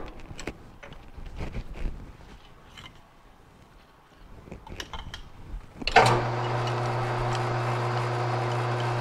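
Light clinks and taps as steel drill chips are cleared by hand and dropped into a tin can, then about six seconds in the metal lathe is switched on with a sudden jolt and runs with a steady hum, its four-jaw chuck spinning the 4140 steel workpiece for drilling.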